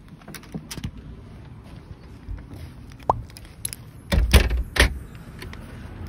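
A bunch of keys jangling and clicking in the hand as the front door is opened, with a short squeak about three seconds in and two loud knocks with a heavy thud a little after four seconds.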